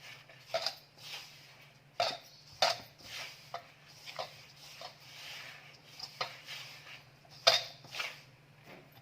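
A utensil clinking and knocking against a mixing bowl at an irregular pace, with soft scraping and rustling between the knocks, as eggs are stirred into flour for dough. The loudest knock comes about seven and a half seconds in.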